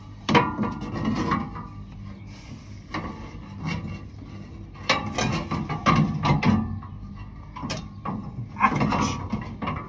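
Sheet-metal clanks, rattles and scraping in irregular bursts as a forage blower's housing and spout are handled and worked into place, over a steady low hum.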